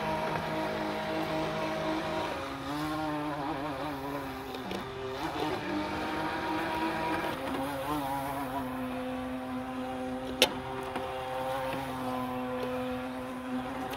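Small model boat's motor whining steadily as it runs on the water, its pitch shifting up and down with the throttle through the first half, then holding steadier. A single sharp click about ten seconds in.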